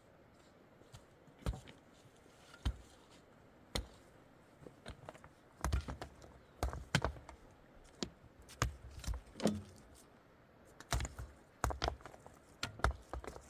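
Irregular knocks, taps and thuds, sparse at first and coming thicker from about halfway through.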